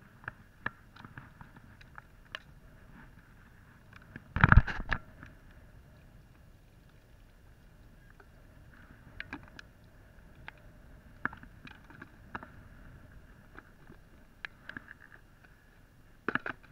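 Hands handling plastic packaging: crinkling and rustling with scattered small clicks. There is one loud rustle or knock about four and a half seconds in, and another brief cluster near the end.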